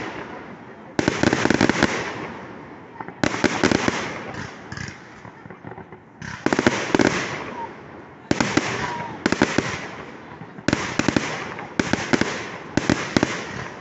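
Fireworks display: aerial shells bursting one after another, about eight in all, each a sharp bang followed by crackling that fades over a second or so, coming closer together near the end.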